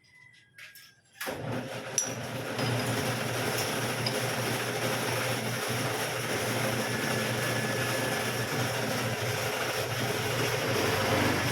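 A car engine starts about a second in and runs steadily with a low hum.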